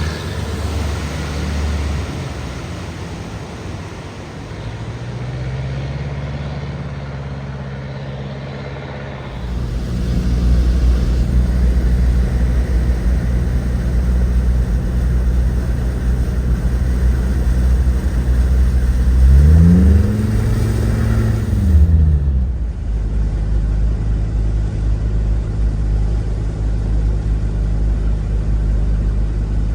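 Car engines running, with a low rumble. One engine revs up and back down about twenty seconds in. The sound changes abruptly twice where the shots change.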